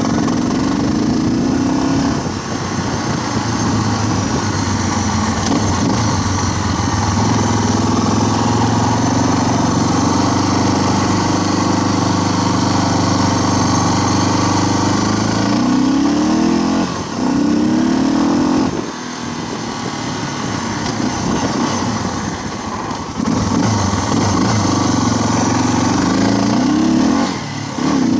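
Single-cylinder four-stroke dirt-bike engine under way, rising in pitch as it accelerates through the gears several times, with steadier running and a short let-off between.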